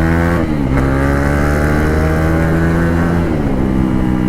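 KTM 390 Duke's single-cylinder engine running loud under throttle through an exhaust without the stock silencer. The engine note dips about half a second in, then drops to a lower steady pitch after about three seconds, as on upshifts.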